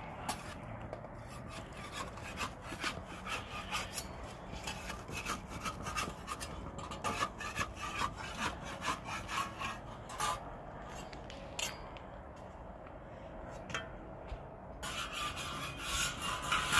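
Flat metal spatula scraping and tapping on a saj, a domed iron griddle, as flatbread is turned on it over a wood fire: a run of short, irregular scrapes and clicks, louder in the last couple of seconds.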